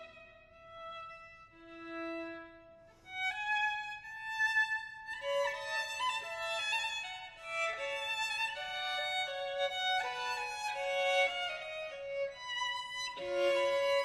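Background music: a violin playing, with a few sparse, quieter notes for about three seconds and then a fuller, busier run of notes.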